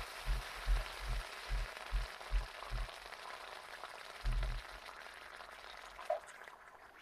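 Water from a hose hissing and sizzling into steam on a preheated Skottle pan, the hiss slowly dying away as the pan cools. Under it, a low thumping about two or three times a second for the first three seconds, and once more about four seconds in.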